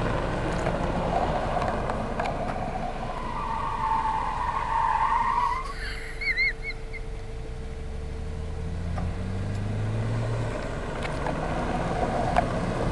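BMW 335 being driven: steady engine and tyre noise, with a higher whine for about two seconds near the middle and a few short chirps just after. The engine note then climbs as the car picks up speed.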